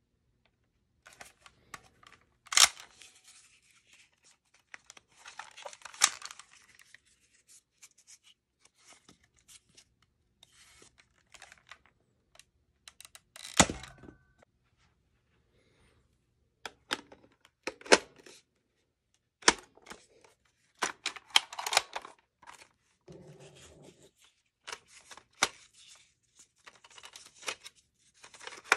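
Plastic Nerf foam-dart blasters being reloaded by hand: a string of separate clicks and clacks with short sliding scrapes as darts are pushed in and priming slides and breeches are worked. The loudest clack comes about halfway through.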